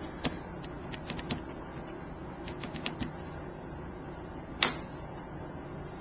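Light clicks and taps of rubber-stamping supplies being handled on a craft table, with one sharper tap about two-thirds of the way through.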